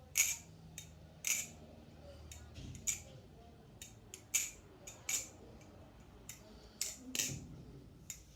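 Glidr Antarctic balisong trainer being flipped by hand: its handles clack against each other and the blade in a run of a dozen or so sharp clicks at irregular intervals.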